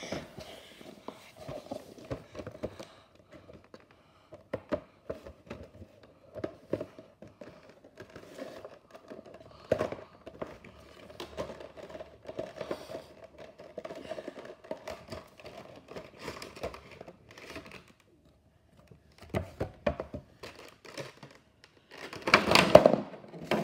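Cardboard Funko Pop box being handled and turned over on a wooden floor: scattered taps and knocks, with light crinkling of the cardboard and plastic packaging. Near the end comes a louder burst of crinkling and rustling as the box is opened.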